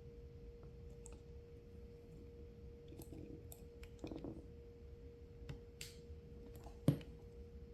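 Small flathead screwdriver prying and jimmying at the tight-fitting halves of a T4E TR50 marker's internal shell, making scattered clicks and small snaps, with one sharper snap near the end.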